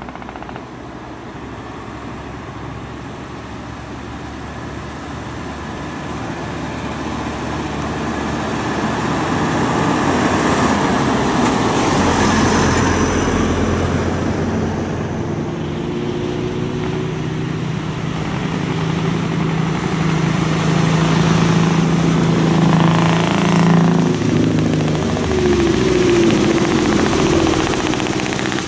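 Heavy diesel trucks approaching in convoy up a winding road, their engines getting louder over the first ten seconds or so, then a steady engine hum as they draw near.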